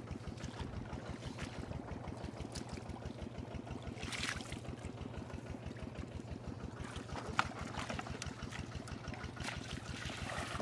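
A small engine running steadily with an even low throb, while muddy water splashes and trickles in short bursts as hands work in the shallow mud and wade through it; a single sharp click about seven seconds in.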